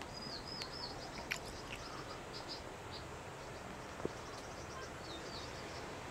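A small bird chirping in short, high twittering phrases, first in the opening second and again about five seconds in, over a steady hiss of sea breeze and surf.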